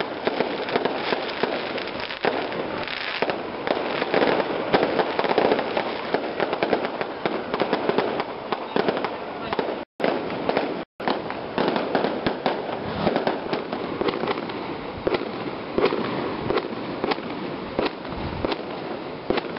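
Firecrackers going off in a fast, irregular crackle, with crowd voices underneath. The sound cuts out twice briefly about halfway through.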